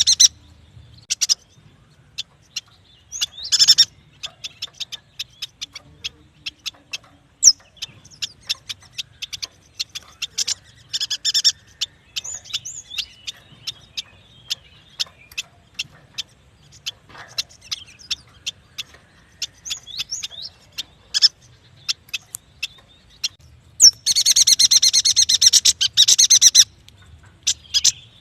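A yuhina singing: a quick, irregular run of short sharp chirps and ticks, broken by a few brief rattling trills, and about 24 seconds in a long, loud, dense trill lasting some three seconds.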